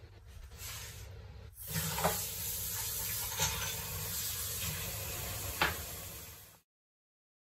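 Steady background hiss with a few soft clicks or knocks, cutting off abruptly into silence near the end.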